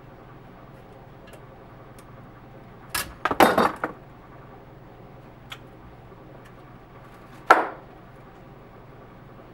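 Metal tools and cylinder-head parts clattering and clinking as they are handled on a workbench: a quick cluster of hits about three seconds in and one sharp knock near seven and a half seconds, over a steady low hum.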